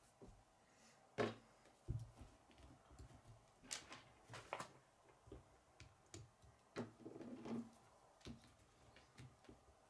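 Plastic K'nex rods and connectors clicking and knocking as they are handled and snapped together: a sharp click about a second in, a low knock soon after, then scattered clicks and a short rattle, with near silence in between.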